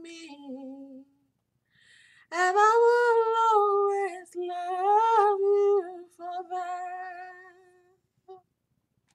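A woman singing a slow melody unaccompanied: a short falling phrase, a brief pause, then long drawn-out notes that trail off near the end.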